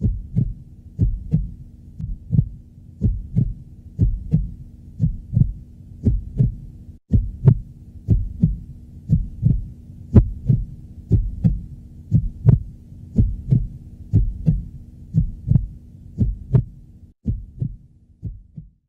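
Heartbeat sound effect: steady low double thumps in lub-dub pairs, over a faint low hum. It cuts out briefly twice.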